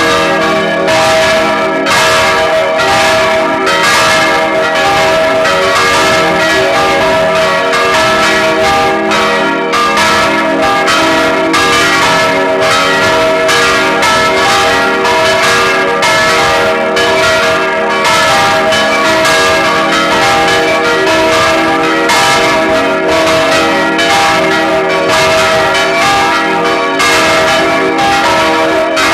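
Full peal of four church bells ringing together: three baroque bells cast in 1788 by Anselm Speck of Heidelberg and a small bell from 1988. The strokes overlap in an uneven pattern, about two to three a second, over a steady mass of ringing tones.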